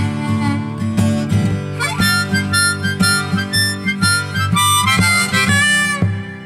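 Background music: a harmonica solo over strummed acoustic guitar in the instrumental break of a country song, dropping away near the end.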